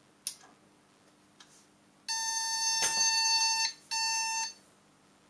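Schneider Euro PC's built-in beeper sounding its startup error beep: one long buzzy beep of about a second and a half, then a short one at the same pitch. It is the CMOS error warning caused by the bad backup battery, with a checksum error. A light click comes just after the start and another during the long beep.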